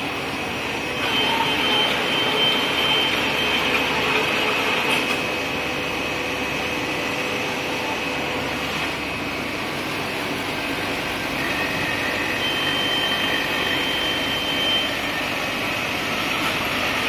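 Intermittent IML label die-cutting machine with automatic stacker running: a steady mechanical running noise, with thin high whining tones that come and go.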